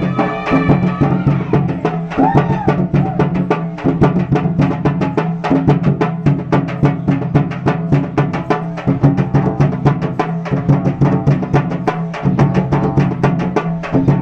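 Dhimsa tribal dance music: fast, driving drumming with rapid strokes over a steady low drone.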